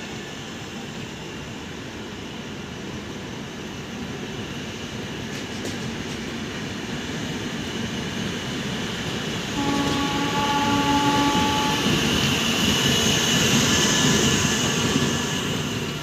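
Passenger coaches rolling along the rails, their rumble and wheel noise growing steadily louder. About ten seconds in, a WAP7 electric locomotive's horn sounds once, a steady blast of about two seconds.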